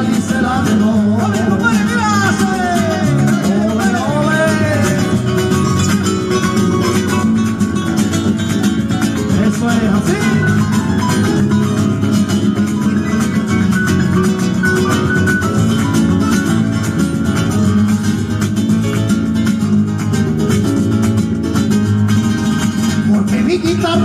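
Live rumba on an amplified acoustic guitar with a steady strummed beat, heard through the stage PA. A singer's voice comes in a few seconds in with flamenco-style sliding vocal runs.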